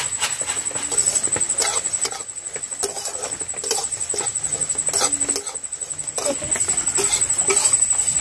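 Puffed rice being stirred and roasted with a metal spatula in a metal wok: irregular scraping strokes and dry rattling of the grains against the pan.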